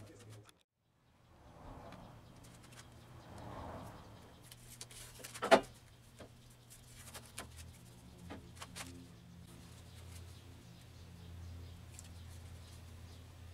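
Wood lathe running with a steady low hum as the wooden blank spins, with light scattered clicks and one sharp knock about five and a half seconds in.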